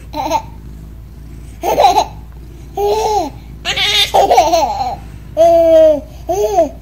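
Baby laughing in a string of short, high-pitched squealing bursts, with one longer held squeal about two-thirds of the way through.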